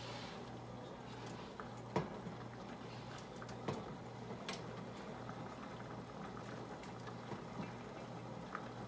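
Water boiling steadily in a large stainless steel stock pot with spaghetti noodles in it, with a few sharp clicks of a utensil against the pot as the noodles are stirred, the first about two seconds in.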